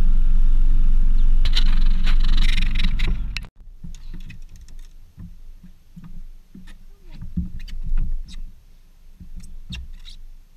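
Boat's outboard motor running steadily while underway, cutting off abruptly about three and a half seconds in. After that come quiet clicks and knocks of fishing tackle and handling in the boat as a bass is reeled in and lifted aboard.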